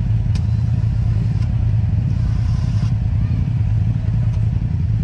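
Engine of a lifted, snorkeled mud ATV running steadily at idle while the machine sits stuck in deep mud, with a couple of faint ticks and a short hiss partway through.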